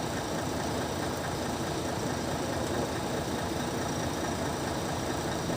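An engine idling steadily, with no change in level.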